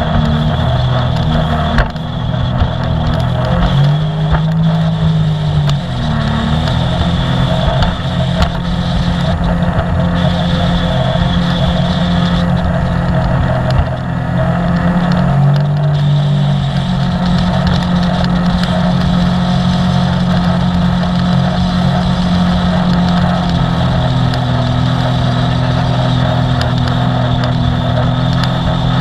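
Sea-Doo personal watercraft engine running steadily under way, with water rushing past. Its pitch swells up and falls back twice, about four seconds in and again around fifteen seconds, as the throttle is worked.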